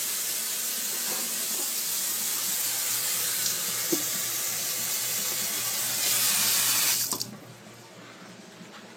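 Food sizzling hard on an overheated barbecue grill: a steady loud hiss that swells slightly and then cuts off suddenly about seven seconds in.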